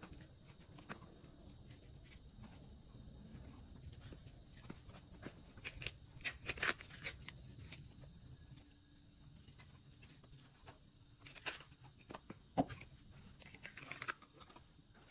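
An insect chirring one steady, unbroken high-pitched note. Scattered sharp clicks and knocks sound over it, with the loudest a little past the middle and again near the end.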